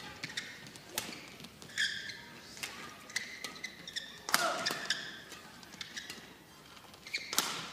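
Badminton rackets striking the shuttlecock in a fast doubles rally: sharp hits about one a second. There are short high squeaks in between, likely shoes on the court.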